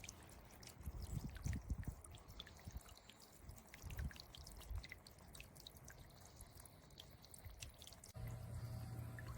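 Faint dripping and splashing of water from a small solar fountain pump's spray falling back into a bird bath. About eight seconds in, it changes abruptly to a steadier sound with a low hum.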